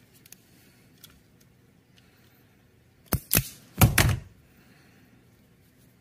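Automatic wire strippers clacking as they strip the insulation off a wire end: two quick sharp clacks about three seconds in, then a louder clatter around four seconds.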